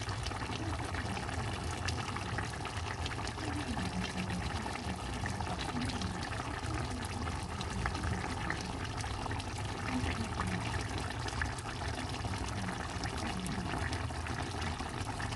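Fish and okra sauce simmering in a pan on the stove: a steady bubbling with many small pops.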